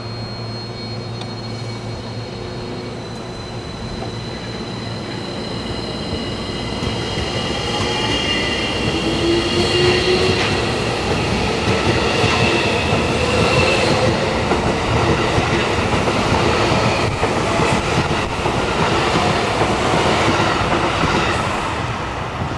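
Electric train with VVVF inverter drive moving through the station: a high-pitched inverter whine with several tones, some gliding in pitch, over the rumble of wheels on rail, growing louder over the first half and then holding.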